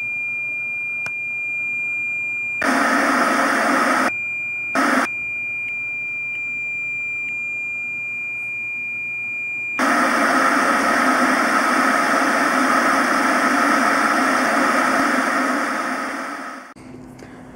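TV test-pattern beep: a steady high tone, broken twice by short bursts of television static hiss. About ten seconds in the tone gives way to several seconds of loud TV static that fades and cuts off near the end.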